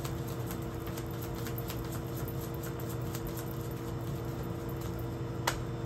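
A deck of cards being shuffled by hand: soft light clicks and taps, with one sharper click near the end, over a steady low hum.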